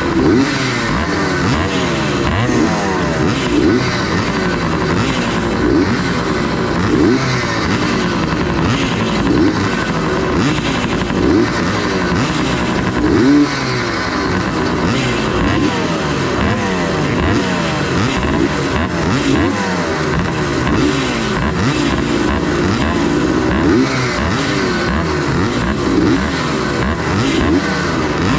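Several vintage 250 cc motocross bikes running at the starting gate, their riders blipping the throttles so the engine notes keep rising and falling over one another.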